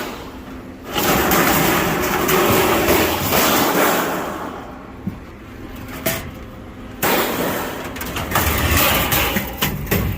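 Scrap metal clattering and banging as it is unloaded off a truck bed onto a scrap pile, over a steady rushing noise that drops away twice.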